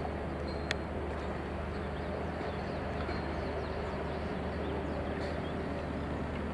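Diesel train moving at walking pace, a steady low engine hum, with one sharp click about a second in.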